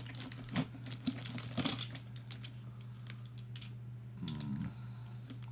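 Crinkling rustles and irregular light clicks of hands rummaging through a box of small used plastic toys, over a steady low hum.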